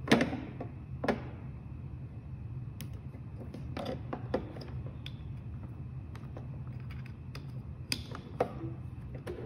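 Scattered sharp clicks and knocks of electronics being handled: a stepper driver module pressed onto an Arduino CNC shield and a USB plug being fitted. The loudest click comes at the very start, with more near one, four and eight seconds in, over a steady low hum.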